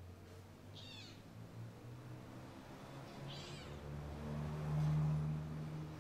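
Kitten meowing: two short, high meows, about a second in and again about three and a half seconds in. Under them a low, steady hum builds and is loudest near the end.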